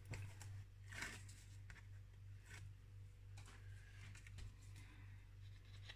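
Faint rustles and light taps of cardstock and double-sided tape being handled on a table, over a steady low hum.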